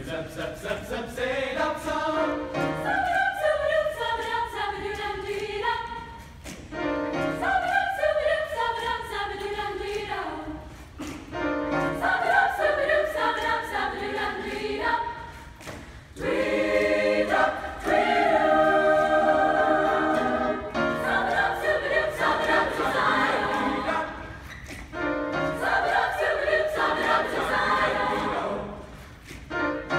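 Mixed choir scat-singing wordless syllables in close harmony, in phrases a few seconds long with short breaks between them.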